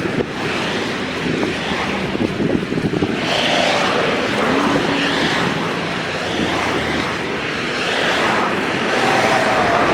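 Steady outdoor noise of passing motor vehicles, with wind on the microphone and a few faint engine tones that rise and fall.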